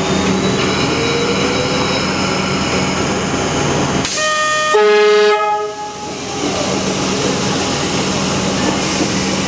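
An electric train's horn sounds once, briefly, about four seconds in: a higher note that drops to a lower one, over the steady electric hum of trains standing at the platform.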